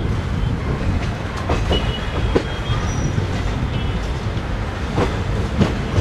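Passenger train rolling slowly over pointwork, heard from on board: a steady low rumble with a few irregular clicks as the wheels cross rail joints and points.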